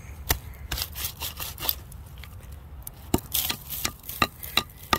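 Digging by hand in rooty, debris-filled soil: irregular scraping and crunching, with a dozen or so sharp clicks and snaps of roots and buried bits scattered through.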